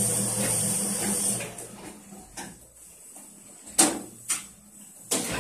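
Small Autoprint sheet-fed offset printing press running steadily, then stopping about a second and a half in. A few sharp knocks follow, the loudest a little before the four-second mark.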